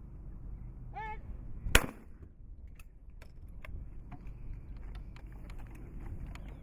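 A trap shooter's short shouted call for the target, then a single loud shotgun shot about three-quarters of a second later.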